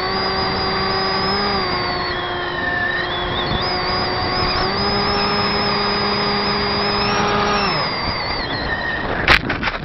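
Turnigy 28-26 2200kv brushless motor and 6x4 propeller of a Zeta Wing Wing Z-84 flying wing droning steadily with wind rush, heard from a camera on the model. The pitch steps up slightly twice, the motor cuts off about eight seconds in, and near the end a loud thump and a few bumps come as the wing lands on the grass.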